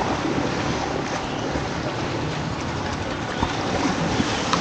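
Steady wind noise on the microphone over small waves lapping at a sandy shoreline.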